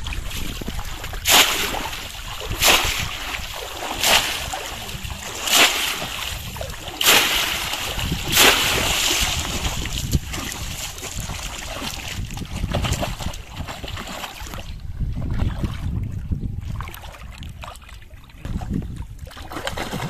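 A bamboo polo fish trap being plunged into shallow muddy paddy water six times, a splash about every second and a half, followed by quieter sloshing as a hand gropes about inside the trap. A low wind rumble on the microphone runs underneath.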